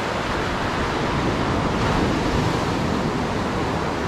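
Ocean surf breaking and washing up the sand around the listener, a steady rushing, with some wind on the microphone.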